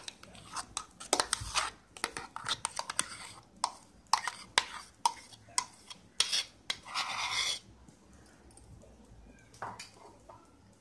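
Spoon scraping thick ground urad dal batter out of a metal mixer-grinder jar into a steel bowl: repeated clinks and scrapes of metal on metal. A longer scrape comes about seven seconds in, and then it goes quiet.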